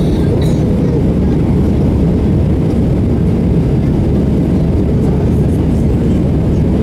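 Airbus A320 passenger cabin during climb-out after takeoff: the jet engines make a loud, steady, low drone with no change in level.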